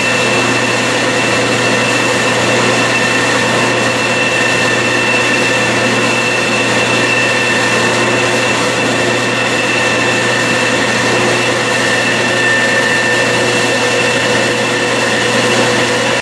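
Bridgeport vertical milling machine's spindle running steadily at speed, with a steady whine over a hiss, while a small file is held against the spinning stepped aluminium part to break its corners.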